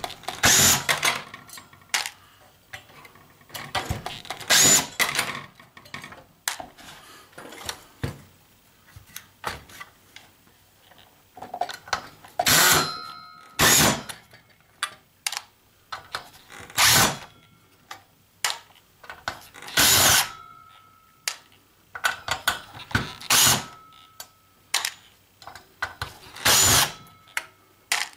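Cordless drill/driver spinning in short bursts, about nine of them, as it backs out the screws holding power transistors to an aluminum heat sink. Small clicks of parts being handled come between the bursts.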